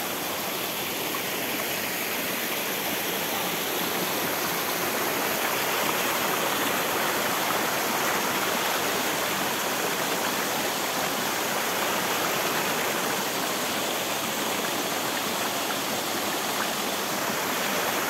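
Mountain stream and small waterfall rushing over rocks: a steady hiss of running water that swells a little midway.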